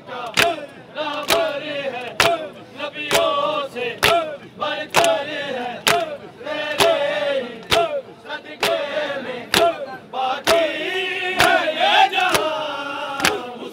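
A crowd of men chanting a mourning chant in unison while beating their chests together in matam, one sharp collective slap about once a second.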